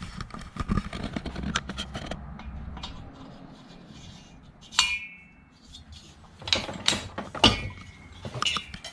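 Metal parts and tools being handled: irregular clicks and knocks, with two short ringing metal clinks, one about the middle and one near the end.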